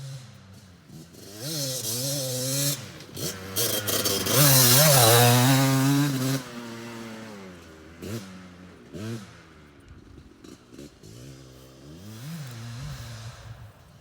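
2005 Kawasaki KDX 200 two-stroke dirt bike engine revving: the revs climb to a loud, high hold in the middle, drop, then come a few short blips and lower running with smaller rises.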